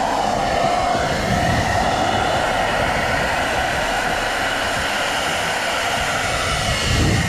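Philips SenseIQ hair dryer running steadily, a continuous rush of air with a hum band in the motor's range. A brief low rumble swells up near the end.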